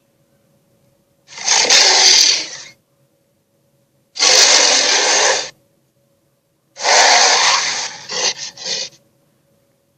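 Three separate blasts of a sea-monster sound effect, each a rushing, hissing noise of one to two seconds. The third breaks into short stutters near its end.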